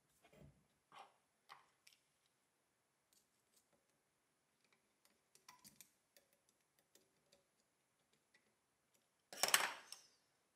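Light clicks and ticks from hands working the small mechanical counter of a vintage measuring wheel, with a small screwdriver on the screw at its side. A louder scrape lasting under a second comes near the end.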